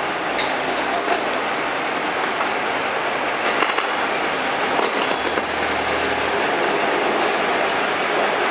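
Narrow-gauge diesel locomotive running, a steady loud noise with scattered clicks and rattles.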